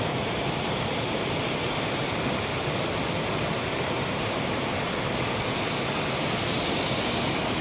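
Steady rush of a small waterfall cascading over rocks.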